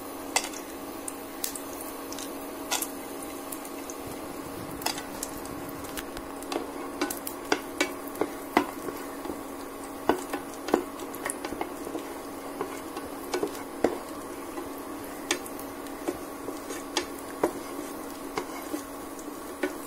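A wooden spatula stirs and scrapes cashews frying in ghee in a nonstick pan, with irregular taps of the spatula against the pan. Under it runs the steady hum of the induction cooktop.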